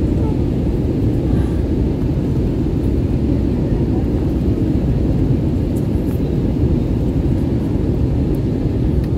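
Steady jet engine and airflow noise of an airliner heard inside the cabin as it circles on approach to land, a deep even rumble with a faint steady hum.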